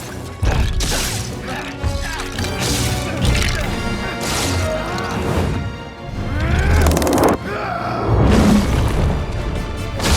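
Dramatic film score with several booms and crashes, and sweeping sci-fi effects in the middle.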